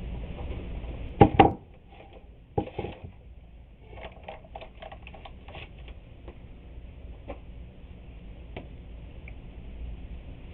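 Two close knocks about a second in and another shortly after, then a run of light taps and clicks: hands handling the glued wooden boards and tools on the work surface.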